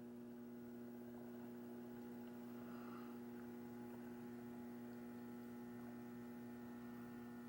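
Faint, steady electrical mains hum: a low drone of a few constant tones, unchanging throughout.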